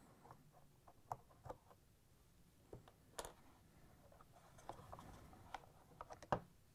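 Faint scattered clicks and light knocks of plastic parts being handled as the inserts are pulled out of a plastic washer detergent drawer, with a soft rustle of handling between the clicks.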